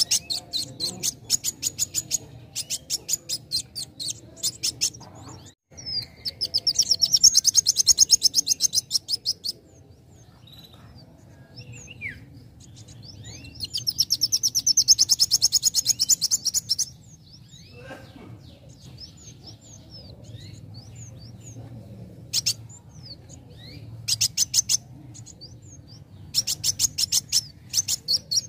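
A young copper-throated sunbird (kolibri wulung) singing: fast strings of high, sharp chips, with two long, dense trills of a few seconds each, the first about six seconds in and the second in the middle, and scattered single chirps between them.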